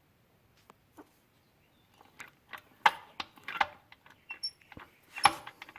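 A string of light clicks and clatters, like tools or small metal parts being handled and set down on a workbench. The loudest clatters come about three seconds in and again about five seconds in.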